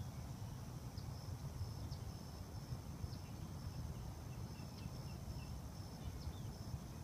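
Insects trilling steadily at a high pitch in marsh reeds, with a few faint short chirps scattered through, over a steady low rumble.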